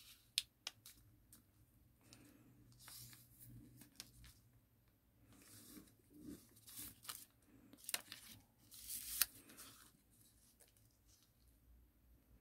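A sheet of origami paper being folded and creased by hand: faint rustling with scattered sharp crackles, loudest about nine seconds in.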